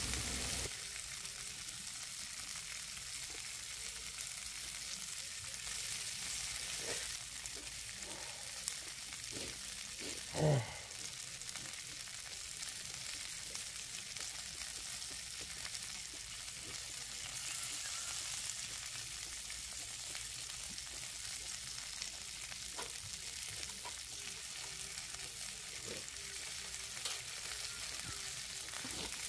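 Thick beef short ribs sizzling on a hot iron griddle plate, a steady hiss of fat frying with a few faint ticks. About ten seconds in, a brief pitched sound rises above the sizzle.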